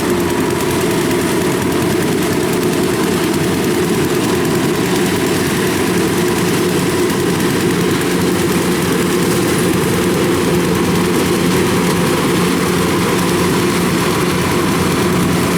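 Kubota rice combine harvester's diesel engine running steadily while cutting, a constant drone that does not change.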